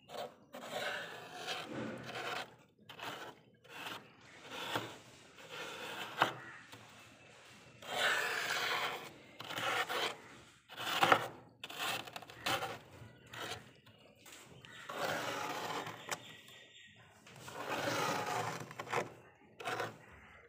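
Plastic spoon scraping thick frost off a freezer's inner walls: a run of uneven scraping strokes, each a second or so long, with a couple of sharp clicks as the spoon catches the ice.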